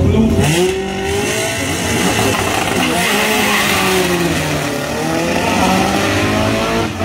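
Small blue hatchback drag car launching off the line at full throttle, its engine note climbing and dropping back with each upshift as it runs down the strip.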